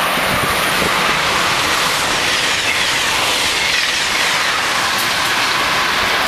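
Amtrak train hauled by an AEM-7 electric locomotive passing close by at speed: a loud, steady rush of wheel and rail noise.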